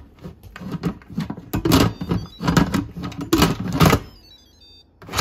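Instant Pot's plastic lid scraping and clunking against the pot's rim as it is twisted and worked into place, a string of irregular knocks and rubs that stops about four seconds in.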